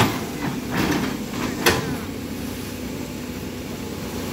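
Diesel engine of a CAT 320D L hydraulic excavator running steadily under load as its bucket digs in a muddy stream bed, with three sharp knocks in the first two seconds.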